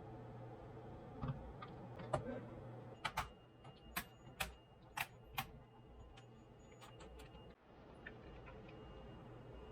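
Scattered sharp clicks and light taps from hands working on a Dell laptop, with a run of about six louder clicks in the middle, over a faint steady hum.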